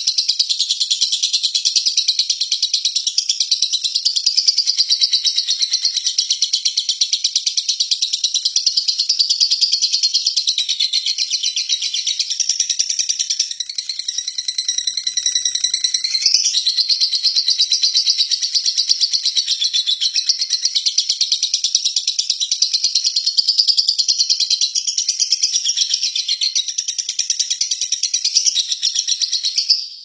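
A Fischer's lovebird singing its long ngekek: a continuous, rapid, high-pitched chatter that runs almost without pause. It softens briefly about halfway through, then picks up again with a short rising note.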